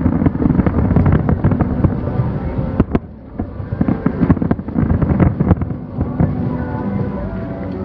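Finale of an aerial fireworks display: shells bursting in rapid succession, many sharp bangs over a continuous low rumble, with a brief lull about three seconds in.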